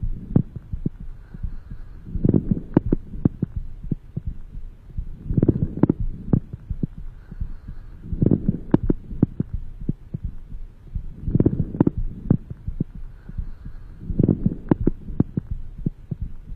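Breath sounds heard through a stethoscope on the chest: a breath swells about every three seconds, with short sharp clicks scattered through and around each breath.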